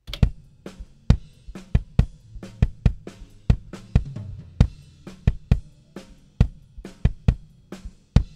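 Raw, unprocessed kick drum microphone track of a small kick drum, played back on its own: a steady groove of kick hits with snare and hi-hat/cymbal bleed from the rest of the kit, before any gate, EQ or compression.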